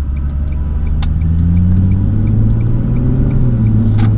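Stock 2006 Nissan 350Z's 3.5-litre V6 heard from inside the cabin, pulling away and accelerating gently, its pitch rising slowly over the first few seconds before levelling off. A short sharp click comes near the end.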